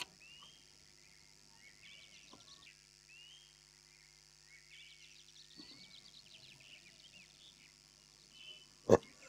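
Faint small birds chirping in short repeated calls over a low steady hum, with one short sharp noise near the end.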